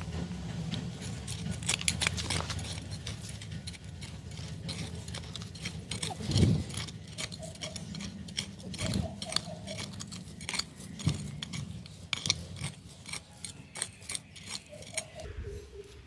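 Strong wind rumbling, with a dense, irregular patter of sharp clicks and taps on hard surfaces throughout. A few short chirps come through, three of them in a quick run about nine seconds in.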